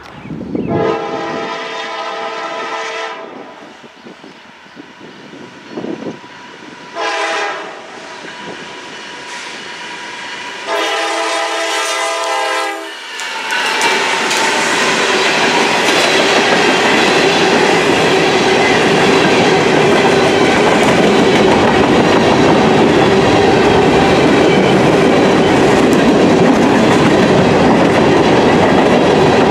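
Norfolk Southern GE D9-40CW diesel locomotive's multi-tone air horn sounding three blasts, long, short and long, as it approaches a road crossing. About halfway through, the locomotive passes close by, followed by covered hopper cars rolling past with a steady loud rumble and the clickety-clack of wheels over rail joints.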